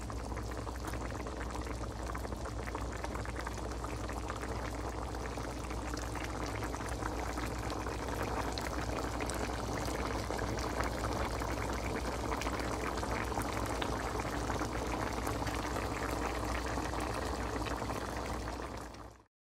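Wok of black bean, pork and jackfruit stew (kadyos, baboy, langka) boiling, a steady bubbling with small pops and crackles, cutting off suddenly near the end.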